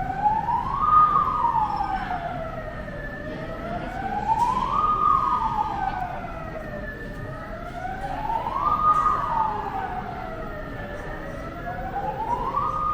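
Emergency-vehicle siren in a slow wail: the pitch rises, holds briefly at the top, then falls back, once about every four seconds.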